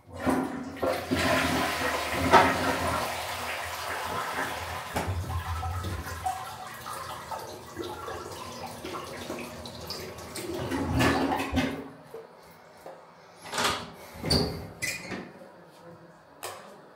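A toilet flushing: a sudden rush of water, loudest in the first few seconds and fading away over about ten seconds. A few short knocks follow near the end.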